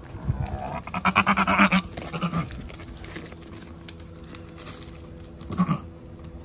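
Goats bleating: one long, pulsed, wavering bleat about a second in, then two short bleats, the last near the end.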